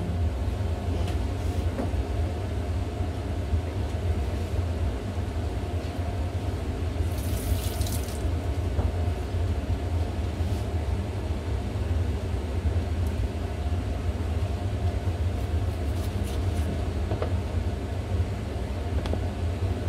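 Steady low machine hum, with a brief hiss about seven seconds in. A few faint knife taps on a wooden cutting board come near the end as kimchi is cut.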